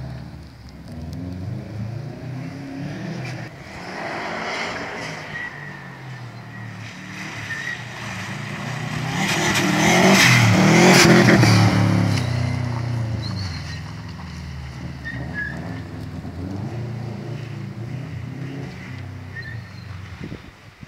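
Subaru Impreza rally car's flat-four engine revving hard through the gears, pitch climbing and dropping at each change. It nears, passes close about ten seconds in with tyre noise on the cobbles, then pulls away into the distance.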